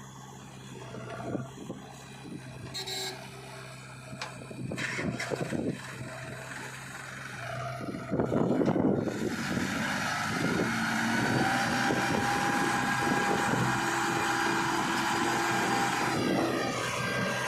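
Diesel engine of heavy earthmoving machinery running steadily with occasional knocks and clanks; about eight seconds in it gets louder and fuller, with several steady tones.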